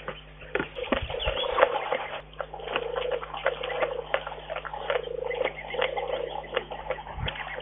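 Brown bear licking and chewing at a log: a run of irregular clicks and smacks from its mouth.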